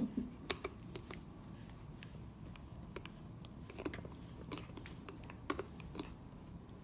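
A Chow Chow chewing on a plastic grooming-tool handle: irregular sharp clicks and crunches as its teeth bite down on the hard plastic.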